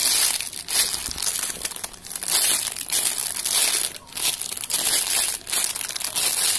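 Clear plastic bag around a squishy toy crinkling as a hand squeezes and turns it, in a continuous uneven rustle that swells and fades.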